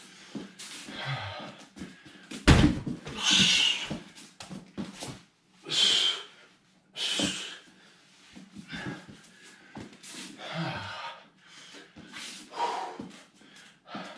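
A grappler working out alone on foam floor mats: a heavy thump about two and a half seconds in as his body lands, hard forced exhales soon after, and softer knocks and rustling as he rolls and moves around on the mats.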